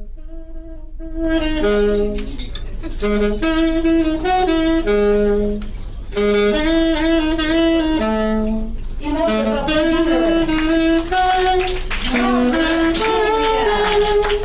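Saxophone played live, a melody of quick notes and held tones.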